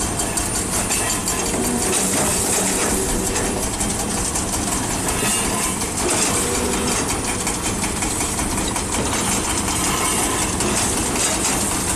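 Hydraulic excavator's diesel engine running steadily under load while its hydraulic pulverizer attachment works through rebar and concrete rubble, with continual rattling and knocking.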